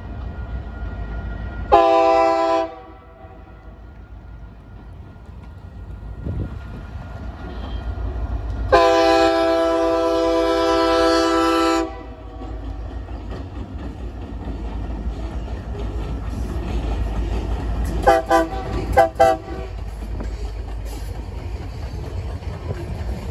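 Union Pacific freight locomotive's multi-note air horn sounding for a road grade crossing: a short blast, a long blast of about three seconds, then a few short toots near the end. Underneath is the low rumble of the EMD diesel locomotives, growing as the train draws near.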